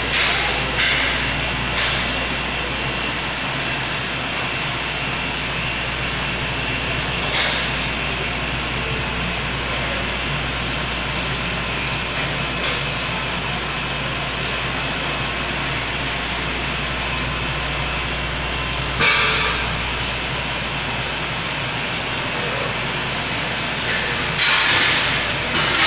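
Cherokee SZM-9S nine-motor glass edging machine running steadily, its grinding and polishing wheels working the flat edge of a glass sheet as it feeds through. A few brief louder surges of hiss come through, once about a third of the way in, once about three-quarters through and again near the end.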